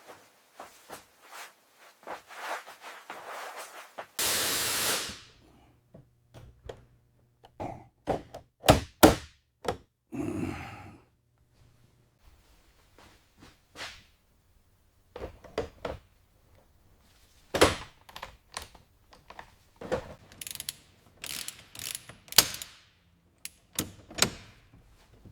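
Hand work on a school bus body, likely prep for sound deadener: a scatter of sharp knocks and clicks from tools and parts being handled. A loud rush of noise lasts about a second, four seconds in, and a shorter one comes at about ten seconds.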